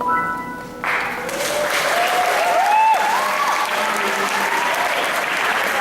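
The final piano chord rings out for under a second, then an audience breaks into applause and cheering, with a few whooping shouts.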